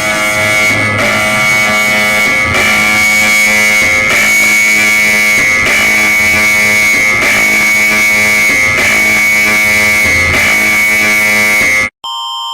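Loud, harsh, distorted guitar-like alert sound with a steady high tone over it, pulsing in a pattern that repeats about every second and a half. It cuts off suddenly near the end, and clean alternating beeps begin.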